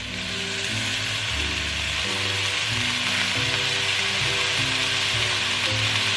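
Brussels sprouts, sausage meat and onion sizzling steadily in a hot frying pan as Worcestershire sauce is poured in, the sizzle growing slightly louder. Soft background music plays under it.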